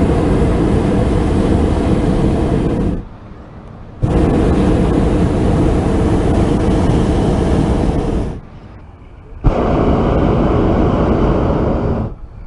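Hot air balloon's propane burner firing in three long blasts, each about three to four seconds, with short pauses between them; each blast stops sharply.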